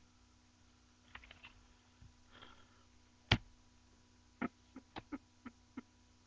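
Handling noise: scattered sharp clicks and taps, one loud click about halfway through, then a quick run of five or six clicks near the end, over a faint steady hum.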